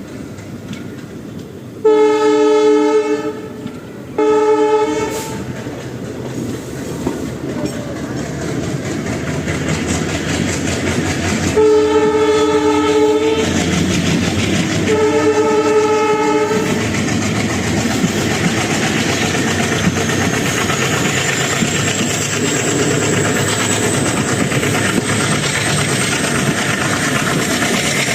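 WDG-3A diesel locomotive pulling an express train away, sounding its horn in two short pairs of blasts. Its engine chugs and grows louder under heavy acceleration, with a high whine rising from about twenty seconds in.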